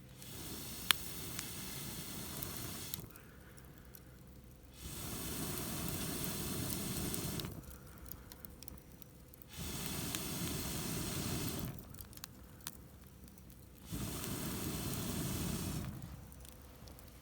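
Four long breaths blown through a fire-blowing pipe into a wood fire, each a rushing whoosh of air and fanned flames lasting two to three seconds, with short pauses between. A sharp crack from the burning wood comes about a second in.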